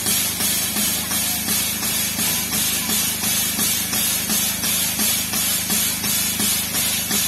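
2 ft narrow-gauge train hauled by a 1919 Andrew Barclay steam locomotive running along the line: a steady hiss with a regular beat about twice a second.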